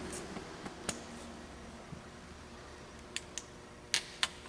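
A handful of short, sharp clicks and taps, two of them in quick pairs near the end, over a faint steady hum: small items being handled.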